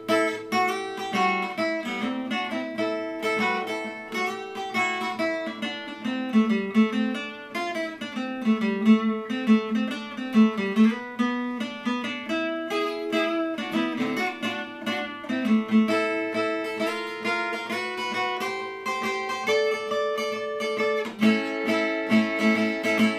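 Steel-string acoustic guitar played solo in an instrumental break, a busy run of picked notes and chords with no singing.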